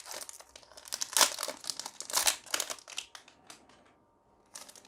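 Magic: The Gathering booster pack's foil wrapper being crinkled and torn open by hand: dense crackling for about three seconds, a short pause, then a few more crinkles near the end.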